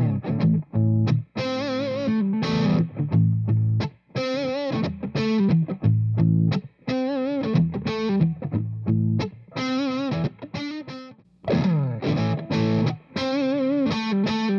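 Epiphone Les Paul Studio electric guitar played through a distorted amp: a riff of picked notes and held notes with vibrato, in short phrases, first on the stock pickups and hardware, which the player calls muddy. Near the end the same riff is heard on the upgraded pickups and hardware.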